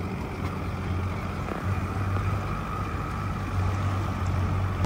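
Outboard motor of an inflatable rescue boat running steadily, a low, even engine hum.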